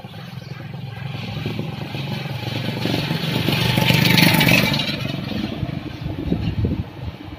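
A motor vehicle's engine running as it passes, growing louder to a peak about four seconds in and then fading away.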